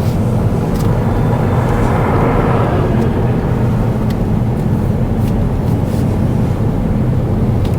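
Steady road noise of a car being driven: a low rumble of engine and tyres with a hiss on top.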